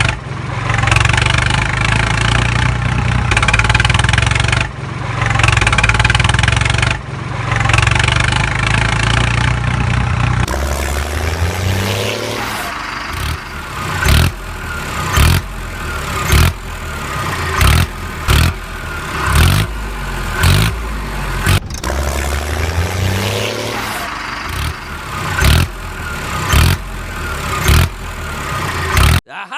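Heavy vehicle engine sounds: a low rumbling engine that swells and eases every couple of seconds for about ten seconds, then a different engine note with short sharp pulses about once a second and a few rising revs.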